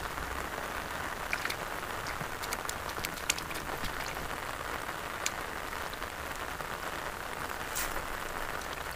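Hand searching through shallow water among grass stems: a steady watery hiss with scattered small splashes and sharp ticks.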